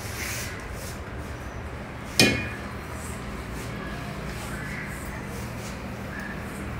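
A stainless steel tumbler clinks once against steel about two seconds in, a sharp knock with a short metallic ring. Around it, faint rustling of hands mixing flour and water in a steel bowl.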